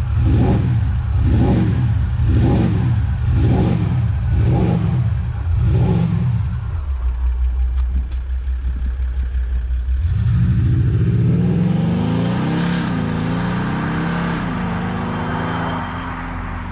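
Maserati Levante Diesel's V6 turbodiesel revved in six quick blips about a second apart, then settling to a steady idle. About ten seconds in it accelerates away, the engine note rising, with two short dips at gear changes.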